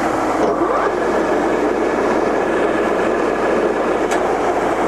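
Wroclaw TUR-50 heavy-duty lathe running with its spindle at 140 rpm in the low gear range: a steady drone of headstock gearing and motor. A whine rises in pitch in the first second, then holds steady.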